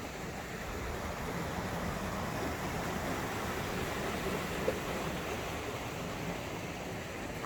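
Rushing water of a small river cascade, a steady even wash that swells a little through the middle, with one short sharp click a little past halfway.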